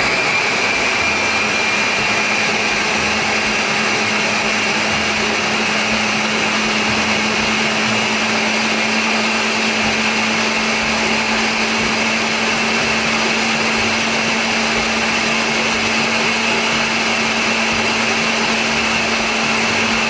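Ninja countertop blender running steadily, puréeing a cooked tomato and cashew sauce until smooth. It makes a loud, even whine over a steady low hum.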